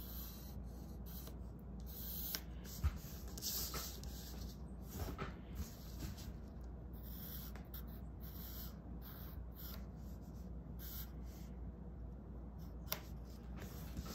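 Pencil scratching on sketchbook paper in repeated short strokes while drawing lines, with a light knock about three seconds in.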